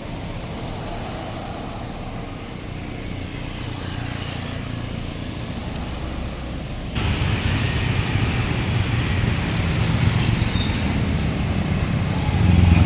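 Road traffic on an uphill road: vehicle engines running with a low rumble that grows louder. About seven seconds in, the level jumps up suddenly and the engine rumble gets heavier.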